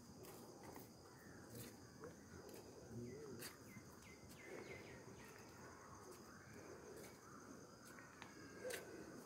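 Near-silent garden ambience: a faint, steady high insect drone, with a few faint chirps and occasional small clicks.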